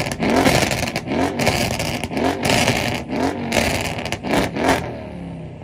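Tuned car engine revved hard over and over in quick throttle blips, about two a second, with sharp cracking pops from the exhaust, then settling back toward idle near the end.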